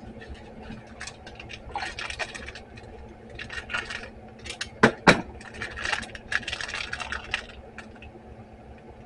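Small clear plastic parts bag rustling and crinkling in the hands as it is cut open with a utility knife, in irregular clusters, with two sharp clicks close together about five seconds in.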